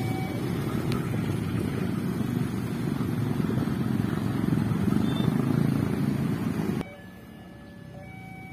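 Many motorbike and scooter engines running together as a stream of traffic crosses the tracks: a dense, steady din that cuts off abruptly near the end, leaving a much quieter background. Faint held tones that change pitch every second or so sound through it.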